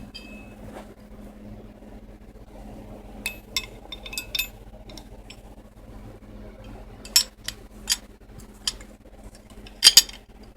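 Steel wrenches clinking against each other and against a Master Lock padlock as they are handled and fitted to it: scattered sharp metallic clinks, some briefly ringing, the loudest pair near the end, over a faint steady hum.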